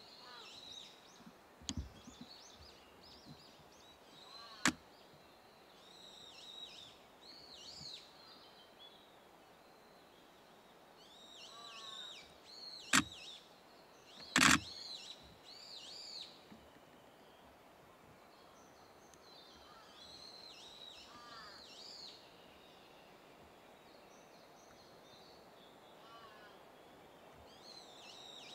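Songbirds singing repeated short, arching phrases over a faint steady background hiss, with a few sharp knocks, the two loudest a little after the middle.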